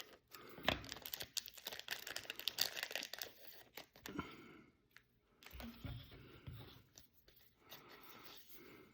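Trading-card pack wrapper crinkling and being torn open as the cards are pulled out. It is busiest in the first four seconds, then turns to softer, scattered rustling.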